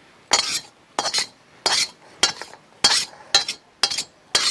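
A spoon scraping and knocking against a kadhai, about two strokes a second, eight in all, each with a short metallic ring, as ghee-roasted vermicelli is scooped out of the pan.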